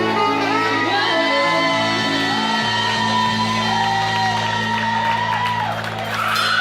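Live band music: a low bass note held under long sustained notes, with a singing voice gliding over them.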